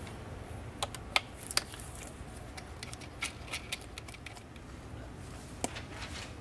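Scattered light clicks and taps of parts handled at a car's throttle body, as hands work its hoses and fittings loose, over a low steady hum.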